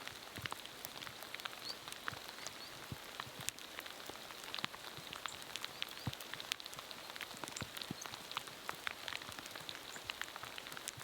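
Light drizzle falling: a steady hiss with many irregular raindrop ticks and taps.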